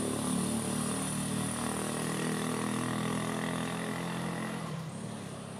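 A motor vehicle's engine running steadily, slowly fading near the end, with a steady high-pitched whine throughout.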